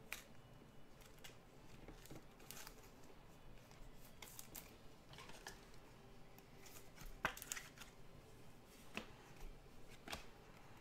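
Faint rustling and a few light ticks of glossy Bowman Chrome trading cards being slid and flipped through by hand, the clearest tick a little after seven seconds.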